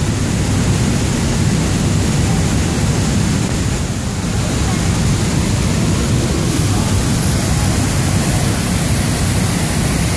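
Large waterfall: a loud, steady rush of falling water.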